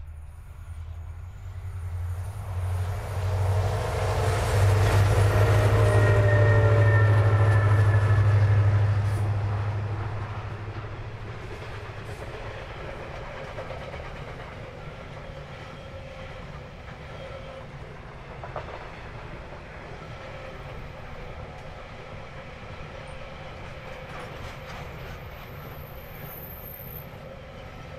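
Diesel locomotives at the head of a loaded SSR grain train pass close by, loudest about four to nine seconds in, with a whining tone that falls slightly in pitch as they go by. Then a long rake of grain hopper wagons rolls past with steady wheel-on-rail noise and occasional clicks over rail joints.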